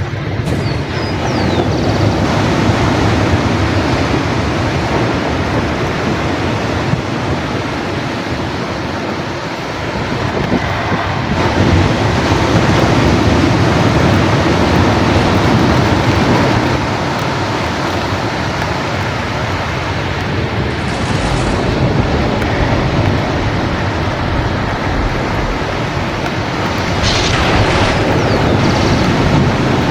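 Ocean surf rushing steadily, swelling and easing in slow surges as waves break.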